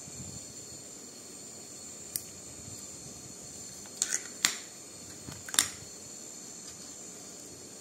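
A few sharp metallic clicks of steel dissecting scissors and forceps being handled and closed, most of them in a cluster about four to six seconds in, over a steady high hiss.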